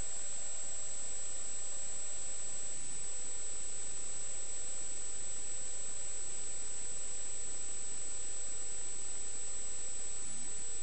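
Steady hiss with a constant high-pitched whine from an underwater camera recording on the bottom of a swimming pool, its own recording noise rather than any clear splash or voice.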